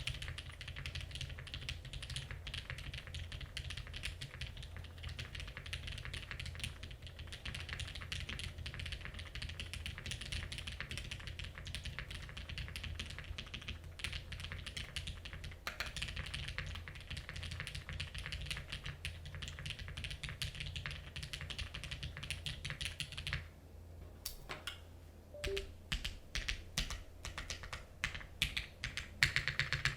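Fast, continuous typing on a Noxary Vulcan Pro mechanical keyboard with an aluminium plate, heavily lubed Cherry MX Black linear switches and GMK keycaps. About three quarters of the way through, the typing slows to separate keystrokes, then speeds up again near the end.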